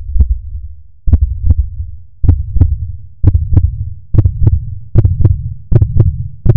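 Heartbeat sound effect: paired low lub-dub thumps, the beats gradually speeding up from a little under one a second to about one and a half a second.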